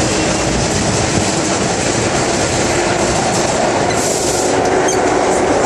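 Vintage 1930s-era New York City subway cars running, heard from inside the car: a loud, steady rumble and clatter of wheels on the rails.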